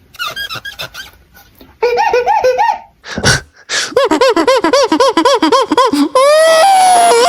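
A person's voice making sound-effect imitations: a run of short pitched whoops, about four a second, broken by a brief hissing burst, then a loud rising wail that holds high, like a siren, near the end.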